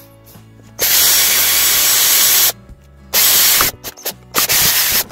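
Three loud bursts of hissing tool noise with no clear pitch: the first about a second and a half long, the next two short. Quiet background music runs underneath.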